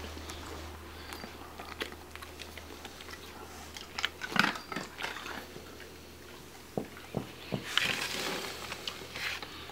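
A dog crunching and chewing a hard treat: a scatter of short, sharp crunches coming in clusters, with quieter gaps between them.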